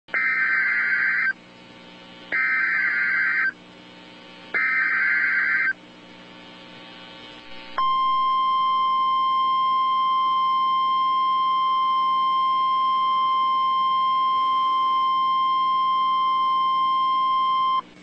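NOAA Weather Radio emergency alert opening: three bursts of the SAME digital header, harsh buzzing data tones each a little over a second long with about a second between them. After a short pause comes the 1050 Hz warning alarm tone, one steady high tone held for about ten seconds, signalling that a severe weather bulletin follows.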